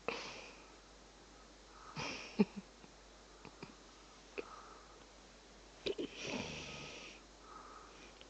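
A person breathing through the nose close to the microphone: short sniffs and a longer, buzzy snort near the end. A few sharp clicks fall between them, the loudest about two and a half seconds in.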